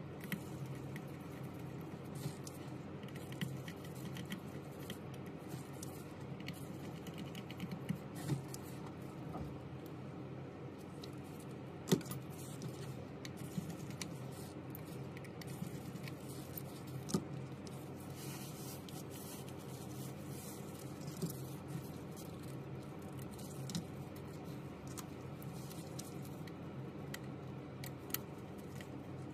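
Scattered small clicks and taps of a precision screwdriver and a plastic pry tool against the screws, brackets and parts of an opened iPhone 11 Pro Max, about a dozen in all, over a steady low hum.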